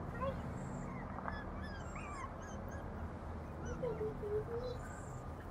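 Four-week-old West Highland White Terrier puppies whimpering, with many short rising-and-falling cries and a longer wavering whine about four seconds in.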